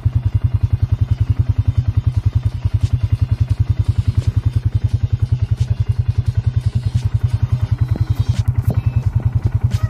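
Farm bike engine idling steadily with an even, rapid pulse of about ten beats a second, with a few faint clicks in the second half.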